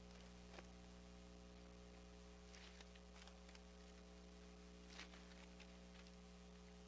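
Near silence with a steady electrical mains hum, and a few faint rustles of Bible pages being turned, the clearest about five seconds in.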